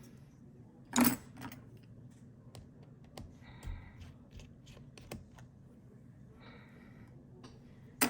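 Small tools and parts clicking and tapping against a MacBook Pro's case during a hands-on battery replacement, with a sharp knock about a second in and another at the end, and two short rasping sounds in between.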